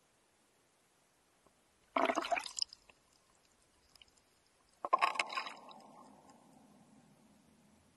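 Water splashing and gurgling at a camera sitting at the water's surface. It comes in two short bursts about three seconds apart, and the second trails off over a couple of seconds.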